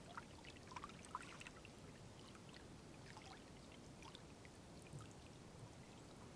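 Near silence: faint lapping of small waves against the rock shoreline, with scattered soft ticks and plinks.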